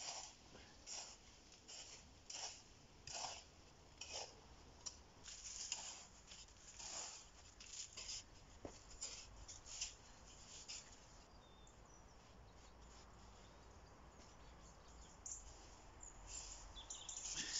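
Scraping and digging in loose sandy earth: short rasping strokes about once a second, stopping for a few seconds past the middle and starting again near the end.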